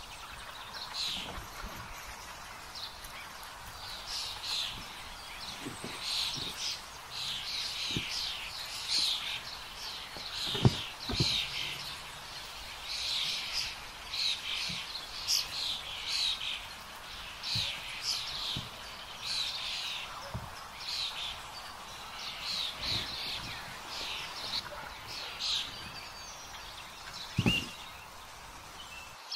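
Woodland birds chirping and singing, a steady run of short high calls one after another. A few dull thumps are mixed in; the loudest comes about eleven seconds in and another near the end.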